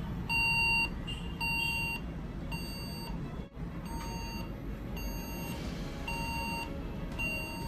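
HP desktop PC beeping: seven short electronic beeps, each about half a second long and a little over a second apart, over a low hum. It is the error beep that the technician takes for a RAM (memory) problem.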